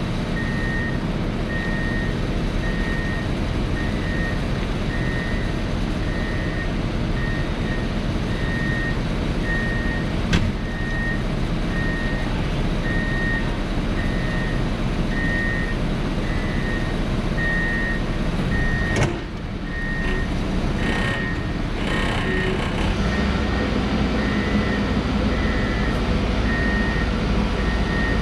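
Case 590 Super N backhoe loader's diesel engine idling steadily, with a high-pitched alarm beeping about once a second throughout. There is a sharp clunk about two-thirds of the way through, and the engine sound grows a little heavier near the end.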